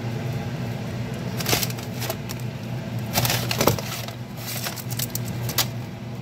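Microwave oven running with a steady low hum, with several clicks and knocks of things being handled over it.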